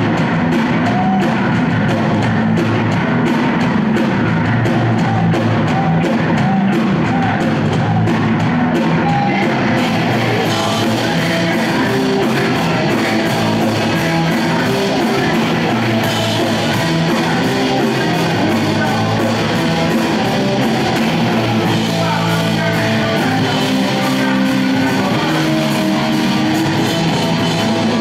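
Hardcore punk band playing live: distorted electric guitar, bass guitar and drum kit, with shouted vocals. The sound grows brighter and fuller about ten seconds in.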